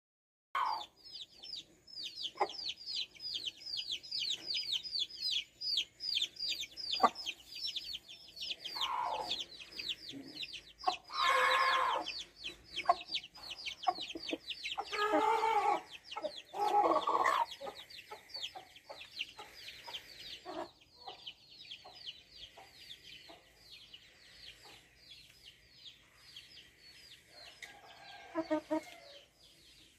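Chickens calling in a cage: several loud clucks and squawks, the longest about a second long near the middle, over a quick run of high thin peeps that carries through the first two-thirds and then fades.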